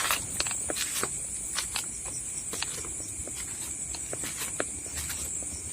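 A steady, high-pitched night chorus of crickets, with footsteps crunching irregularly over leaves and twigs on top.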